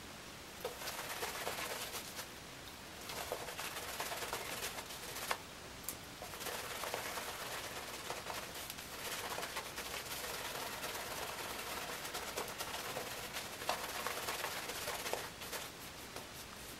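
Shaving brush swirled over a soap-lathered face: a soft, wet swishing full of fine crackles, coming in spells with short pauses, as the lather is built up thick and dense.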